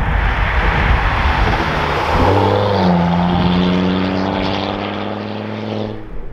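Volvo C30 T5's turbocharged 2.5-litre five-cylinder car driving by. At first there is a rush of road and engine noise. From about two seconds in, a clear exhaust note rises briefly in pitch as the car pulls away, then holds steady and fades before cutting off near the end.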